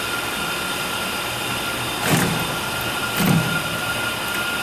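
Milwaukee cordless ratchet run in two short bursts on a rear brake caliper bolt, which it is not strong enough to turn. A steady mechanical hum carries on underneath.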